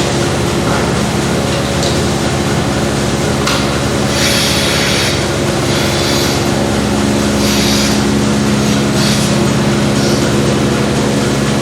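A machine motor running steadily with a low, even hum, with short bursts of hissing every second or two.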